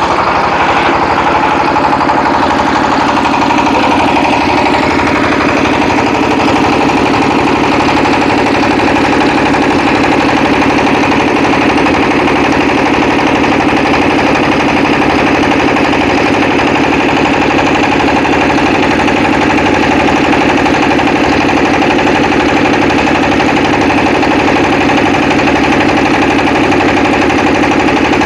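Small engine on a mobile raw-clay brick making machine running steadily under load with a fast, even pulse, driving the machine as soil is pressed into bricks.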